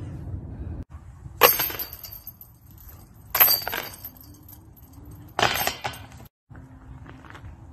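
Flying discs hitting the hanging chains of a disc golf basket three times, about two seconds apart, each a short metallic jangle and clatter as the disc drops into the basket.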